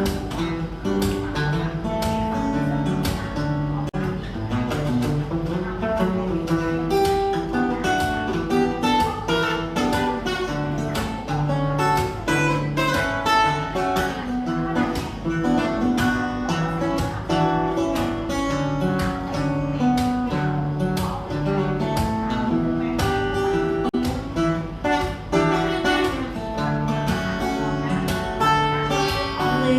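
Acoustic guitar playing an instrumental passage alone, notes picked in quick succession over a moving bass line, with no singing.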